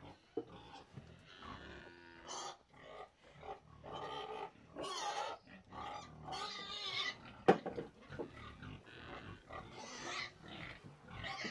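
A dairy cow eating ground concentrate feed (harinilla) from a tub: irregular chewing and rustling of the feed as it noses through the bowl, with a few sharp clicks.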